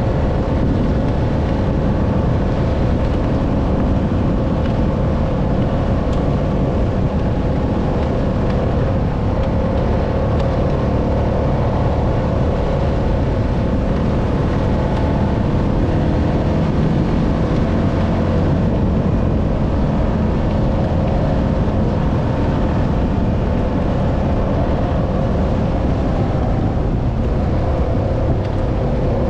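ATV engine running steadily while the machine rides along, a constant drone with one steady held tone.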